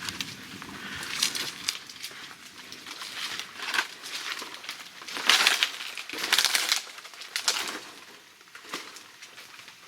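Footsteps pushing through wet undergrowth and mud, with leaves and brush swishing and crunching in irregular strides about once a second.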